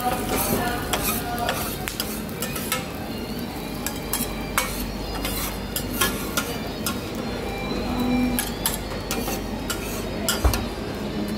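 Steel spatulas scraping and clacking on a large flat iron griddle while beef fried rice is stir-fried and scooped up, with a sizzle underneath. There are irregular sharp clicks throughout, and a heavier knock about ten seconds in.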